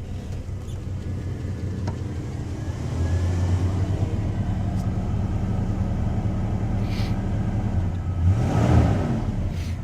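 1993 Chevy S10's 2.8-litre V6 throttle-body-injected engine running at idle, getting louder about three seconds in, with a brief rev that rises and falls back near the end.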